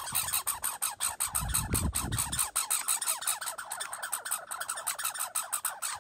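American red squirrel chattering at a rival: a rapid, steady rattle of clicks, the species' aggressive territorial call.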